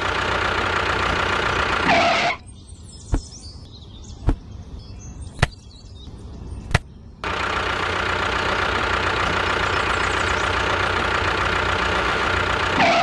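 Tractor engine running steadily. It breaks off for about five seconds in the middle, where four sharp knocks come a little over a second apart, then runs again until the end.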